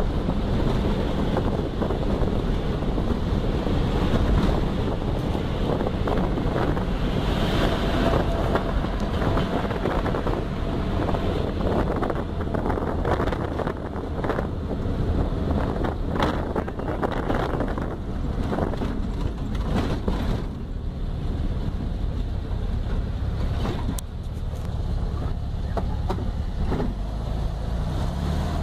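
1969 Volkswagen Beetle's air-cooled flat-four engine running steadily, with wind noise on the microphone.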